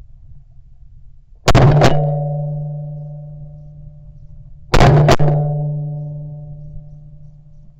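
Two loud booms about three seconds apart. Each is a sharp double crack followed by a deep ringing hum that fades away over about three seconds.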